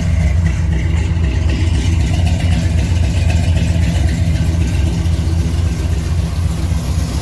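The carbureted engine of a 1977 Chevy Silverado pickup idling steadily, cold, just after a cold start.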